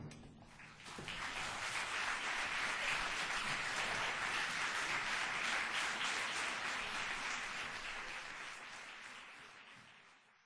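Audience applauding, starting about a second in just after the band's last chord dies away, and fading out near the end.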